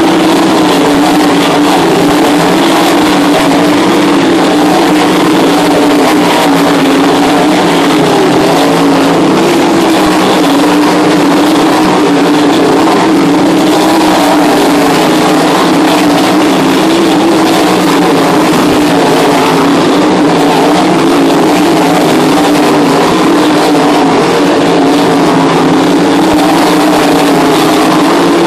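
A pack of winged dirt-track sprint cars racing round the oval, their V8 engines running flat out in one loud, continuous drone that rises and falls a little as the cars pass.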